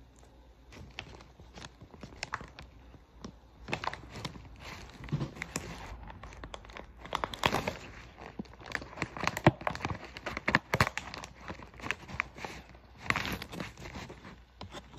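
Plastic MRE packaging being handled close to the microphone: irregular crinkling and rustling that starts about a second in and grows busier and louder after a few seconds.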